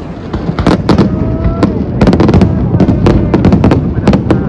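A large fireworks display: many sharp bangs in quick, irregular succession over a steady low rumble.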